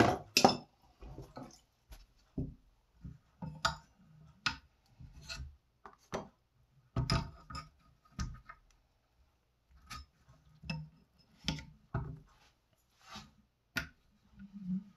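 Irregular clicks, knocks and small clatters of an Edge Pro sharpening system's stone arm and stones being handled while the stone is changed from the 250 to the 650 grit.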